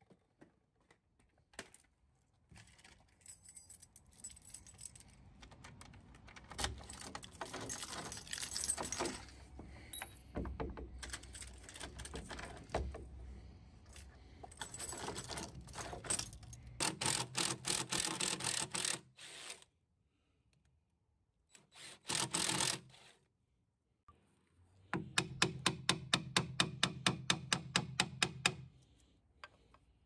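Long-throw steel bolt gate lock being worked by hand: metal clicking and rattling in bouts as the lock is operated and the bolt slides. Near the end comes a regular run of sharp clicks, about four a second.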